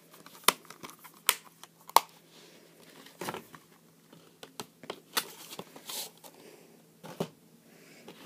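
Hands handling a plastic Blu-ray case: a scattered series of sharp clicks and taps, with some light rustling between them.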